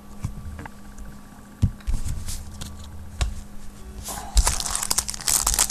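Trading cards handled with a few light taps and clicks, then from about four seconds in the crinkling of a foil card-pack wrapper being handled, over a steady low hum.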